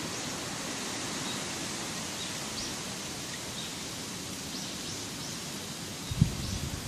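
Outdoor ambience: a steady, even background hiss with faint, scattered short bird chirps. A few low thuds come about six seconds in.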